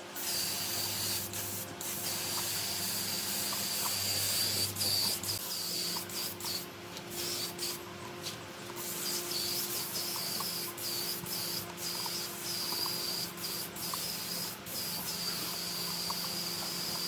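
Compressed-air spray gun hissing steadily, broken by several short gaps, with a steady low hum underneath.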